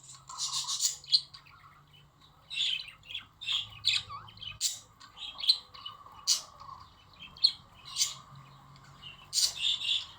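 Budgerigars chattering: a run of short, sharp squawks and chirps with warbling between them, coming irregularly several times a second with brief pauses. This is the flock chatter used to stimulate budgies to breed.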